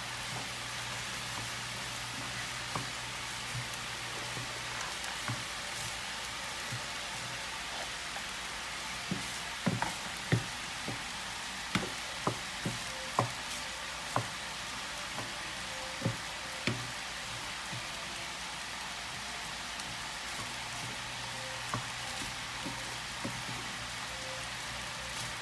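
Fried rice with vegetables and egg sizzling steadily in a frying pan as it is stirred with a wooden spatula. A run of sharp knocks of the spatula on the pan comes in the middle.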